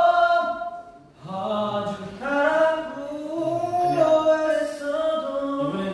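Male voices singing long, sliding notes without accompaniment, pausing briefly about a second in.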